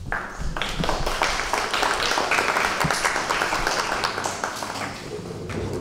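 Audience applauding: dense clapping that starts suddenly, holds for about five seconds and dies away near the end.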